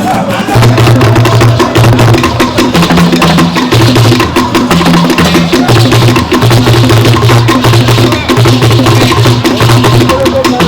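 Loud percussion music: a fast, dense run of sharp clicking strikes over low held notes that step between a few pitches.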